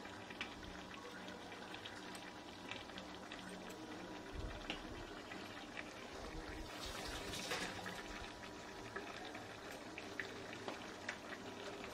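Onion masala with freshly added ginger paste frying in oil in a pan: a faint, steady sizzle with scattered light clicks. About seven seconds in, a louder hiss swells for about a second.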